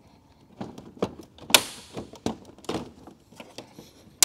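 Front bumper cover of a 2012 Volkswagen GTI clicking and knocking against its mounts as it is pulled and worked by hand, with a sharp crack about a second and a half in. The cover is still caught on its fastenings.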